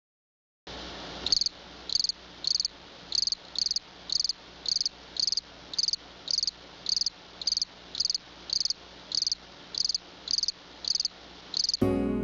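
A cricket chirping in a steady rhythm, a short high chirp a little under twice a second. Music comes in near the end.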